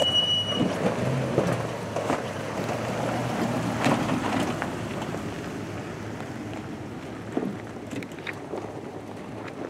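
Toyota Tundra pickup's V8 engine running at low revs as the truck crawls down a steep dirt trail and pulls away, with scattered knocks from the tyres and body over rough ground. A brief high squeal sounds at the very start, and the engine fades after the truck passes close by.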